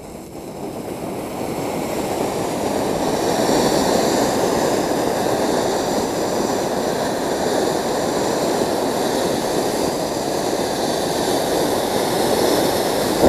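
Diwali ground fountain firework (Android fountain) spraying sparks with a steady rushing hiss that builds over the first couple of seconds and then holds, with no bangs. It dies down right at the end.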